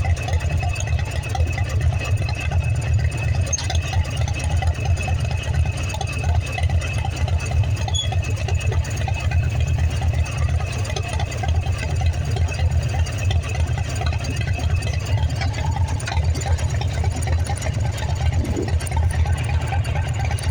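Harley-Davidson motorcycle engine running steadily, its sound concentrated in the low end.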